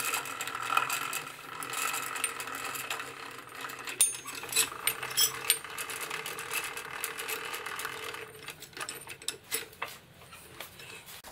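Metal clicks and clinks from a lathe's three-jaw chuck and a steel tube being handled, over a steady hum that stops about eight and a half seconds in.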